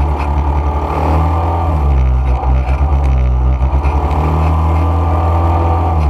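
ATV (quad bike) engine running steadily while riding along a dirt track, a loud low drone whose pitch wavers a little with the throttle.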